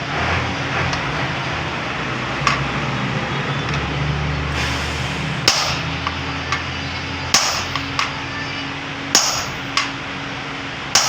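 Hammer striking metal every second or two, each blow sharp and ringing, over a steady low hum.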